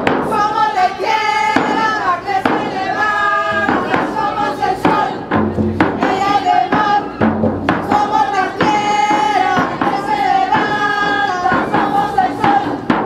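A man singing a chant in long held notes while striking a hand-held frame drum with a beater in a steady beat.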